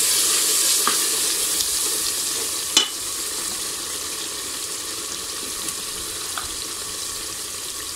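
Onion, ginger-garlic paste and chilli powder sizzling in hot oil and ghee in a pot, stirred with a wooden spoon. A single sharp knock comes about three seconds in, after which the sizzle is a little quieter.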